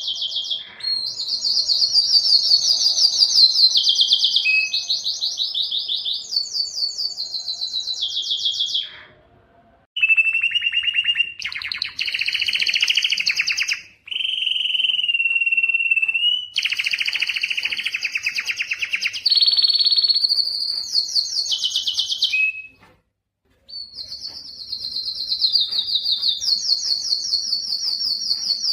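Spanish timbrado canary singing long runs of rapid trills, each run held at one pitch before switching to another, with a few short breaks.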